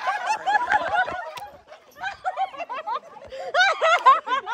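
People laughing in quick giggling runs that break off a little under two seconds in and then pick up again.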